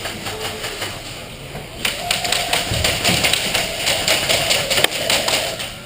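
Airsoft guns firing in rapid automatic bursts: a fast run of sharp clicks, sparse at first and then heavy from about two seconds in until shortly before the end.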